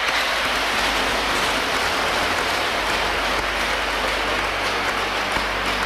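Applause, a dense even clapping.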